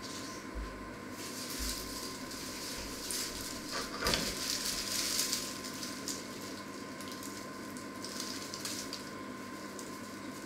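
Crinkly rustling of a plastic mesh bag of small citrus fruit being handled, busiest in the middle, with a single knock about four seconds in, over a steady electrical hum.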